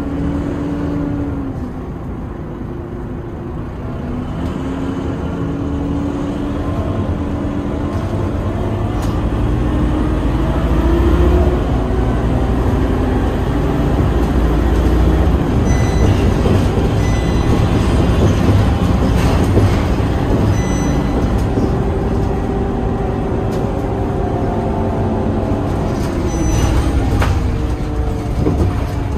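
Scania K230UB city bus heard from inside the passenger cabin while under way: its diesel engine and drivetrain run with a deep rumble and a tone that rises and falls in pitch as the bus picks up speed and changes gear, growing louder from about four seconds in. Several short high beeps sound near the middle, and there is a brief rattle near the end.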